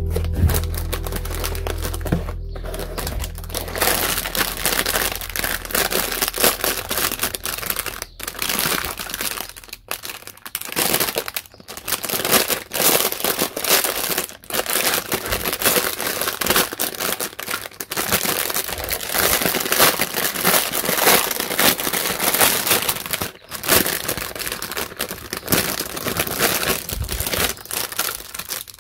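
Clear plastic packaging bags crinkling and rustling as they are handled and opened, with cardboard box flaps rustling at the start.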